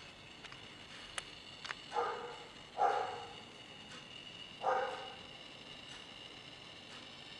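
Three short animal calls, about two, three and nearly five seconds in, each starting sharply and dying away. A few faint clicks come in the first two seconds.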